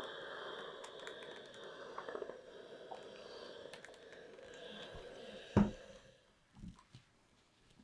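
Steam iron sliding over fabric with a steady hiss, then a single thump a little past halfway as the iron is set down, followed by a couple of soft knocks.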